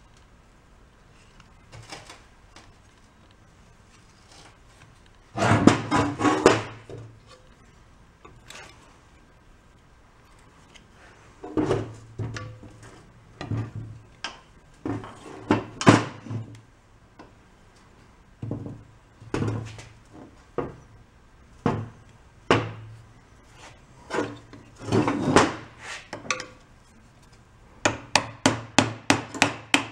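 Hand tools knocking and scraping on a small antique tiller engine as it is taken apart: scattered clanks and clatters of metal parts, then near the end a quick run of hammer taps, about four a second, driving a screwdriver against the engine.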